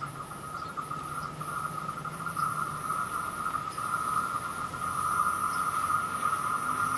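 Insects chirring steadily in the trees: a continuous high-pitched trill with a hissy shimmer above it, slowly growing louder.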